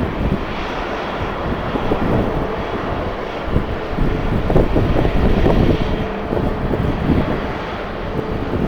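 Jet airliner engines running, heard through strong wind buffeting the microphone, with a faint steady whine in the second half.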